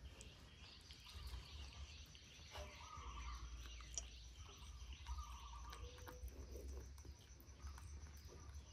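Faint, repeated bird chirping over a low steady hum.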